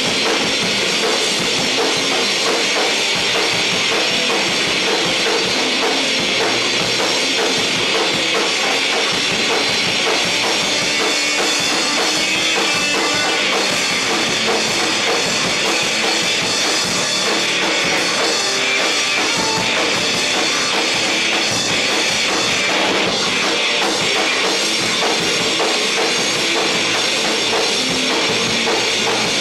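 A rock band playing live and loud, with the drum kit driving hard and a steady kick drum under a dense wall of sound.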